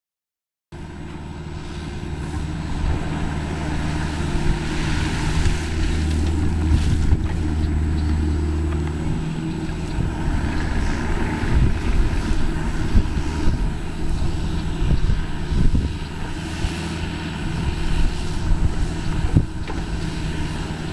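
Diesel engine of a Kubota mini excavator running steadily while it works an aquatic vegetation rake through an irrigation canal, with wind buffeting the microphone. The sound cuts in suddenly under a second in.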